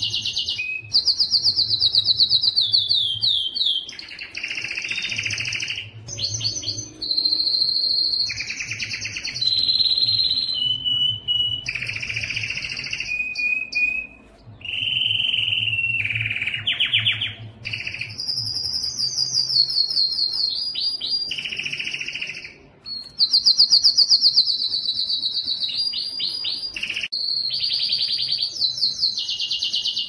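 Domestic canary singing a continuous song of rapid trills and rolls, moving from one repeated-note phrase to the next every second or two, several phrases falling in pitch as they go.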